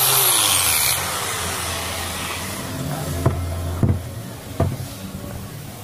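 Electric wood planer machine: its loud cutting noise stops about a second in, and the motor goes on humming as it runs down and fades. Three sharp knocks come near the middle.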